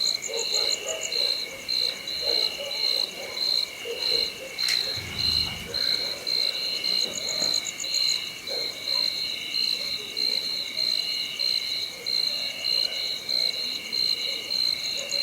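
Night chorus of insects chirping in steady high pulses, about two to three a second, with frogs croaking irregularly underneath. A single sharp click with a low thud comes about five seconds in.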